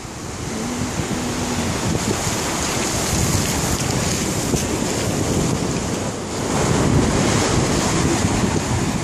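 Shallow surf washing up a sandy beach, a steady hiss and rush of water, with wind buffeting the phone microphone in low rumbles. The wash swells louder about two-thirds of the way through.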